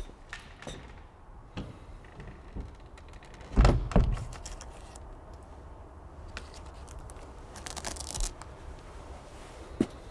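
Quiet room sound with scattered small clicks and rustles, and two heavy thuds in quick succession about three and a half seconds in, followed near eight seconds by a short hiss.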